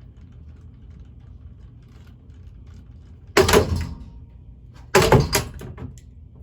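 Cheap ceiling fan running with a low steady hum, its blades loose on their screws. Two loud clattering bangs come about three and a half and five seconds in.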